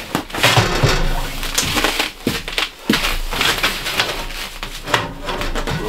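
Rough scraping, crinkling and light knocks as a sheet-metal stovepipe section is worked down onto the collar of a small box wood stove, with the rustle of a puffy winter parka as the arms move.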